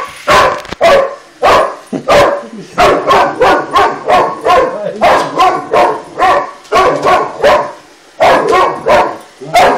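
Boxer dog barking loudly and repeatedly at a running Roomba robot vacuum, about two barks a second, with a brief pause near the end.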